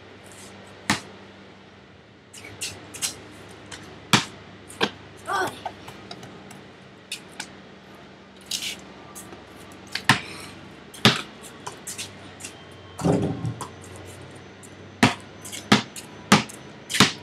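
Basketball bouncing on a paved driveway: a dozen or so single sharp bounces at irregular intervals, about a second or more apart.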